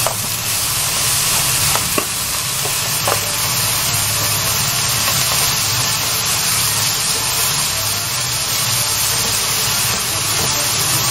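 Thinly sliced pork and fried tofu (atsuage) sizzling steadily in a frying pan as they are stir-fried, with a spatula scraping the pan and a few sharp clicks of utensils on the pan in the first three seconds.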